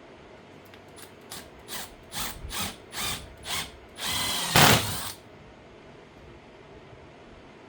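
Power drill working in wood: about seven short trigger bursts, roughly two a second, then one longer run of about a second, the loudest part, its pitch bending under load.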